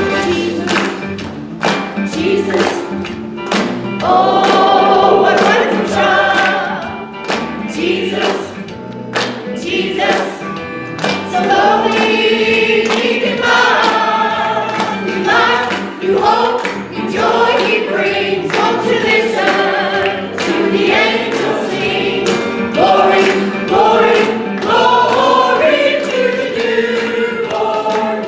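Church choir singing a Christmas cantata number to an accompaniment with a steady percussive beat.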